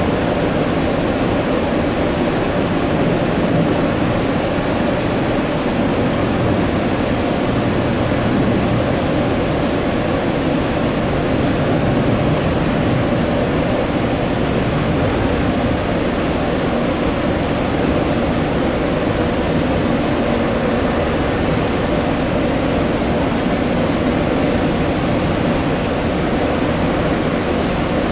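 Jet airliner engines running, a steady, unbroken noise that holds at one level throughout.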